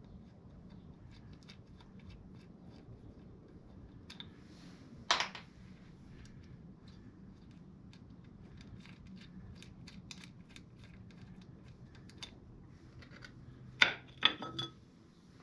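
Metal derby-cover screws on a Harley-Davidson primary case being turned out by hand, giving faint scattered metallic ticks and scrapes. There is a single sharp clink about five seconds in, and a quick run of louder clinks near the end as the cover is lifted off.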